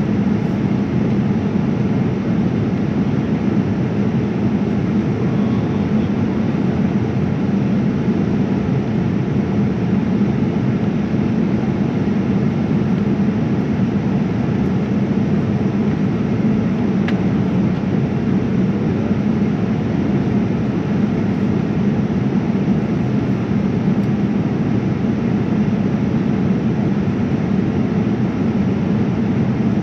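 Steady cabin noise inside a Boeing 787-9 airliner in flight: the even rumble of the engines and rushing air, holding level without rising or falling.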